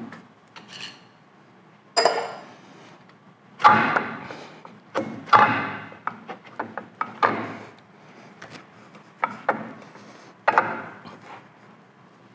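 Cast-iron cross slide and compound swivel of a Monarch lathe being worked loose by hand: a series of irregular metal clunks and knocks, some ringing briefly with a scraping tail, as the heavy parts shift against each other.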